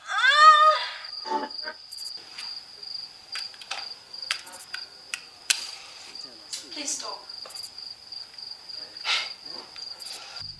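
Crickets chirping in a steady, high continuous trill. A loud, rising high-pitched cry opens it, and scattered soft clicks and rustles follow.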